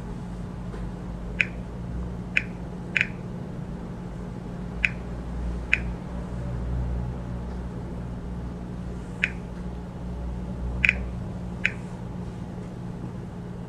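Short clicks of keys being tapped one at a time on a Smartmatic vote counting machine's touchscreen keyboard, about nine at uneven intervals, over a steady low hum.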